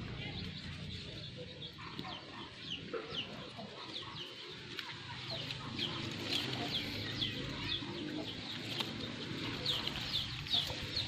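Birds calling: many short, high-pitched, falling chirps, coming more often in the second half, over a steady low background murmur.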